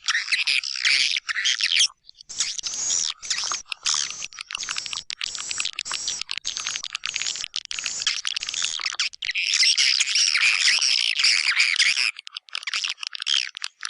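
Recorded white-nest swiftlet calls, a swiftlet-farming lure sound: a dense, high-pitched chittering twitter that breaks off briefly about two seconds in and grows louder in the second half.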